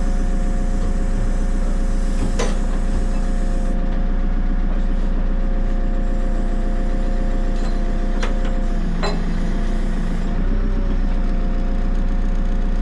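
JCB 3CX backhoe loader's diesel engine running steadily, with a steady whine over the engine note. A few sharp clicks or knocks come through, one early on and two near eight and nine seconds in.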